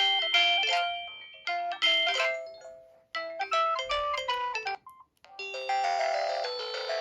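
Samsung SGH-D500 mobile phone ringtone: a bell-like electronic melody in short phrases of notes that ring and fade. It stops about five seconds in, and a fuller, denser tune starts.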